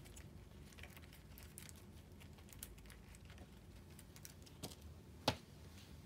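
Light clicks and taps of a homemade paper infinity cube being flipped and folded in the hands, with one sharper tap a little after five seconds in as it is set down.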